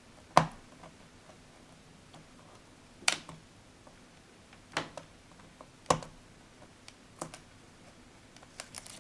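Sharp, irregular clicks and taps from a flathead screwdriver prying at laptop screen parts: about five distinct clicks with a few fainter ticks between them.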